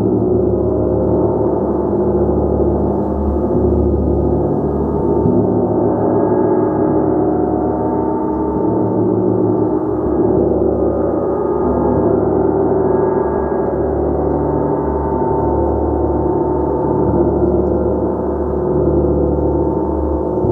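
Gong played continuously: a dense, sustained wash of many overlapping ringing tones that holds at a steady level, with no single strike standing out.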